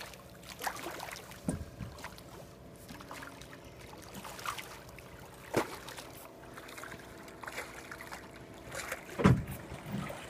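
Water splashing as a large hooked fish thrashes at the surface beside a boat, over a steady low hum from the boat. A loud thump comes about nine seconds in as the fish is gaffed and pulled aboard.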